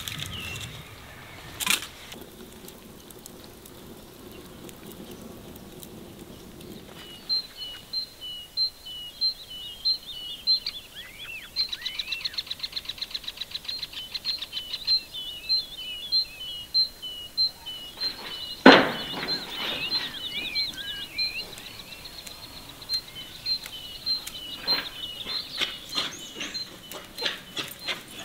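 Songbirds singing, a short high note repeated about twice a second, with a fast trill in the middle. Two sharp knocks, one near the start and a louder thump about two-thirds of the way through.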